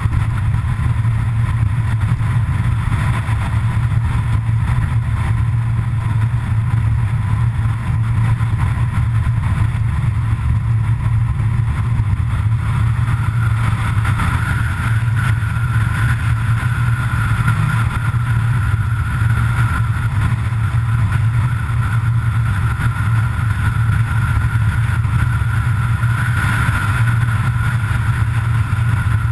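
Steady noise of a vehicle driving at full speed on an open road: a constant low engine and road drone. A thin steady whine comes in about halfway through and holds.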